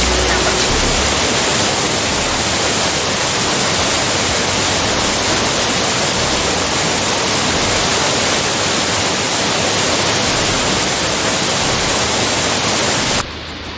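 Waterfall rushing: a loud, steady, even hiss of falling water. Near the end it drops off abruptly to a quieter rush.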